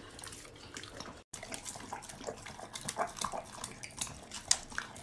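Dogs eating spaghetti and meatballs off a plate: irregular wet chewing and slurping with small clicks.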